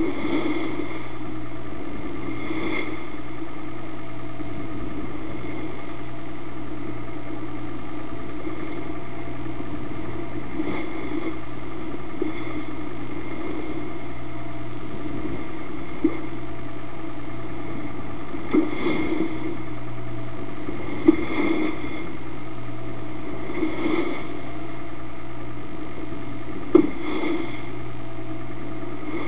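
Motor yacht's engine running with a steady drone, with surges of rushing water every few seconds as seas wash over the bow. There are a few sharp knocks in the second half.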